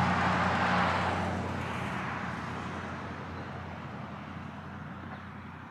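A passing road vehicle driving away: a low engine hum and tyre noise, loudest at the start and fading steadily over several seconds.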